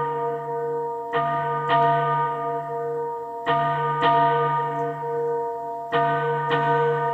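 Bells ringing, struck in pairs about half a second apart, with a new pair every two and a half seconds or so. Each strike rings on into the next.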